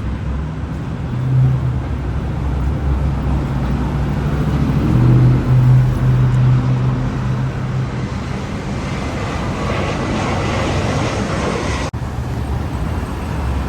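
Busy road traffic: a steady rumble of engines and tyres, with a vehicle's engine hum standing out twice and a vehicle passing close about ten seconds in. The sound drops out for an instant near the end.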